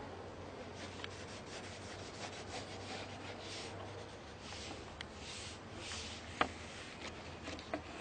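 Paintbrush rubbing and scrubbing on a canvas in soft scratchy strokes, with a few light clicks and taps, the sharpest about six and a half seconds in.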